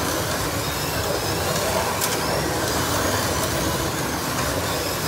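Several 1/32-scale slot cars running laps: a steady whir of small electric motors and tyres on the track, with a few faint rising whines as cars speed up. A couple of short clicks about two seconds in.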